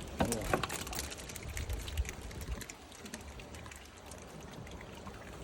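Water splashing and trickling, with a few sharp knocks in the first two seconds.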